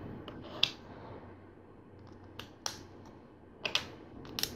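LEGO plastic pieces clicking and snapping as small parts are handled and pressed together, a few scattered sharp clicks, some in quick pairs.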